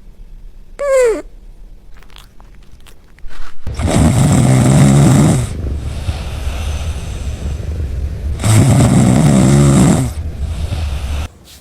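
Cat snoring: two loud snores, each about a second and a half long and some four seconds apart, with softer breathing noise between them. A short squeak falling in pitch sounds about a second in.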